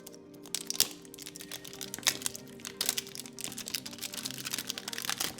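Plastic shrink-wrap being peeled off a smartphone box, crinkling and crackling in quick irregular clicks, over background music.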